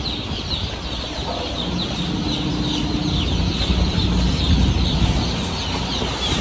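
Hundreds of baby chicks peeping inside stacked cardboard transport boxes: a dense, continuous chorus of short, high, falling peeps over a low rumble.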